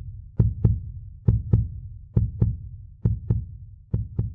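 Heartbeat sound effect: deep double thumps in a lub-dub pattern, a pair a little under once a second, slowly fading.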